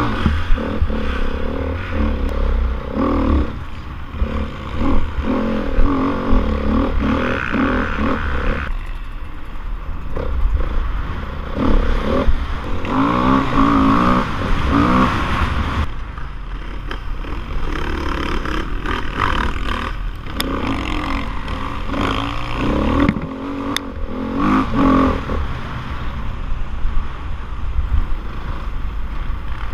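Dirt bike engine revving up and dropping off again and again as the rider accelerates and shifts, heard from the rider's helmet with wind buffeting the microphone.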